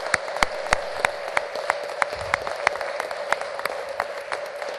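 Audience applauding: many hands clapping in an irregular patter, easing a little near the end, with a steady hum underneath.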